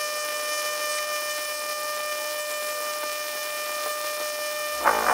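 AC TIG welding arc on aluminum, shielded with a roughly 70-30 argon-helium mix, giving a steady high-pitched buzz. Guitar music comes in near the end.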